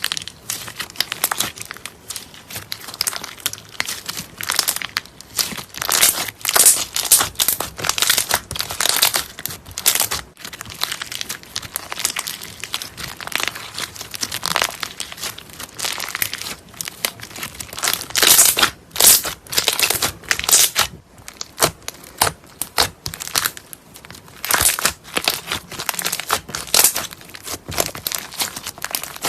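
Slime being pressed and pulled by hand, giving a dense, irregular run of crackles and clicks.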